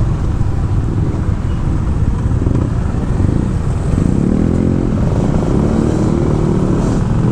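TVS XL100's 99.7 cc single-cylinder engine running while the bike is ridden, under a loud low rumble of wind on the microphone; the engine's pitch shifts from about two and a half seconds in.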